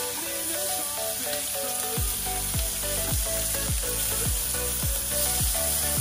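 Thin bacon slices sizzling as they fry, a steady hiss. Background music plays over it, with a regular kick-drum beat coming in about two seconds in.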